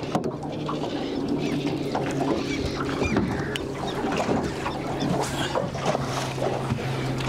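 A fish splashing in a landing net at the boat's side and the net being lifted aboard, with scattered splashes, knocks and rattles of the net and frame, over the steady hum of a boat motor.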